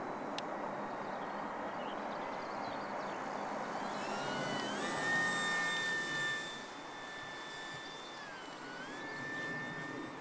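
Electric motor and propeller of a Durafly Slow Poke RC model plane in flight: a steady whine over a rushing sound. The whine rises in pitch about halfway through as the throttle opens, dips briefly near the end and climbs again.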